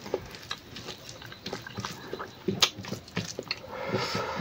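Close-up eating sounds: chewing and lip smacks mixed with scattered clicks of fingers working rice on a plate. A short pitched vocal sound comes near the end.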